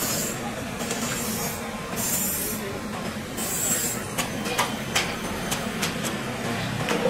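Working fish-market floor noise: a steady low hum with four short bursts of hissing, scraping noise and several sharp knocks or clicks.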